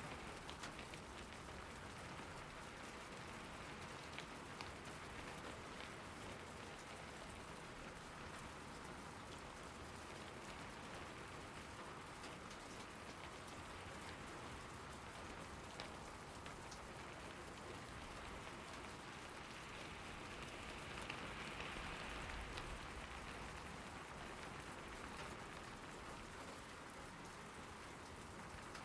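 Steady rain falling, with many individual drops ticking close by. The rain swells briefly a little over two-thirds of the way through.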